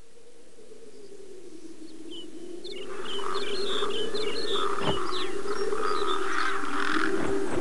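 A steady tone, wavering slowly up and down in pitch, fades in. About three seconds in, a busy chorus of short high chirps and twitters, like small animals, comes in over it, with a sharp click near the middle.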